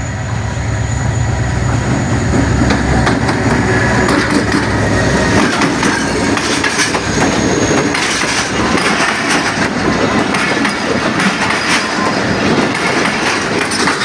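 Passenger train passing at speed, hauled by an HGMU-30 diesel-electric locomotive: the locomotive's low engine drone for the first five seconds or so, then the coaches' wheels clattering over the rail joints as the carriages roll by.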